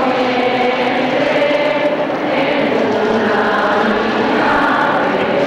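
A group of voices singing a slow hymn together, with long held notes that change pitch slowly.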